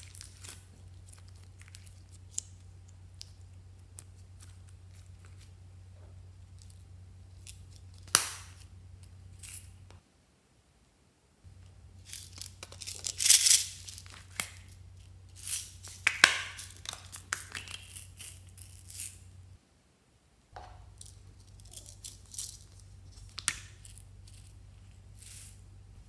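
Slime being squeezed and worked by hand, making sharp crackling pops and clicks in scattered clusters, loudest about halfway through. A low steady hum runs underneath and cuts out twice.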